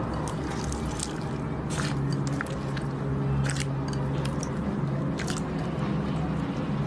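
Slime being squeezed and kneaded by hand, giving sticky squishing with sharp wet pops and clicks every second or two over a steady low hum.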